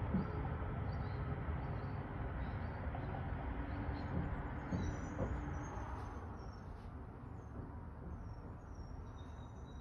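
A low, steady rumble that fades away about six seconds in, with faint high bird chirps over it.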